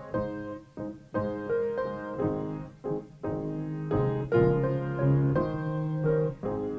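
Piano music: a slow prelude played as separate notes and chords.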